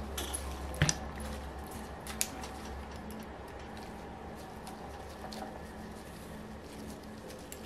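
Light clicks and taps of small metal model-engine parts being handled with gloved hands, the sharpest about a second in and another about two seconds in, over a low hum that dies away within the first second.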